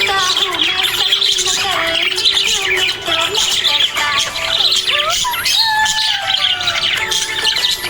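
Several budgerigars chirping and warbling together in a dense, continuous chatter of overlapping chirps and gliding whistles.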